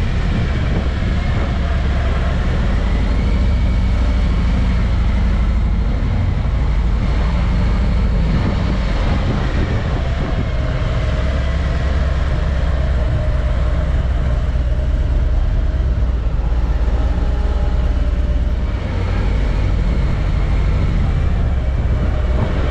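A car driving: a steady low rumble of engine and road noise, with faint engine tones that shift in pitch.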